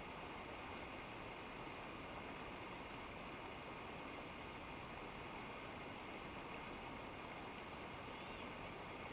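Steady, even rush of a mountain stream's running water, with no changes.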